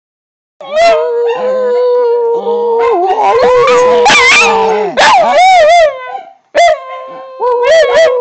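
Puppies howling: long, wavering howls that start about half a second in, stop briefly around six seconds in, then start again.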